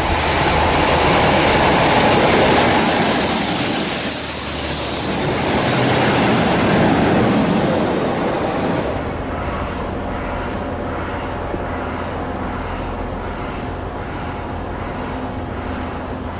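A Class 37 diesel locomotive with its train of wagons passing close by: engine, wheel and rail noise with a strong hiss, cutting off sharply about nine seconds in. After that only a steadier, lower rumble of wind on the microphone remains.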